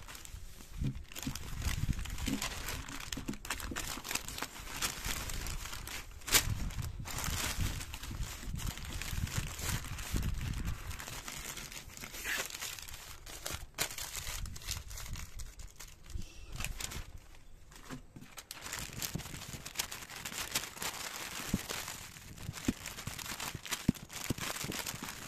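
Newspaper rustling and crinkling as sheets are folded and wrapped around sweet potatoes, with many sharp crackles of the paper.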